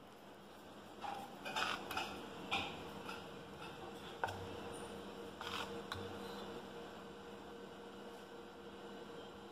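Steel spoon scraping and clinking against a stainless steel bowl while stirring thick batter, a handful of times in the first six seconds, with one sharper click in the middle. A steady low hum runs underneath.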